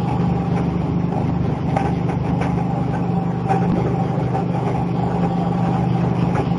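PE plastic-film agglomerator running: a steady low machine hum from its motor and rotor, with a thin steady whine above it and a few light ticks.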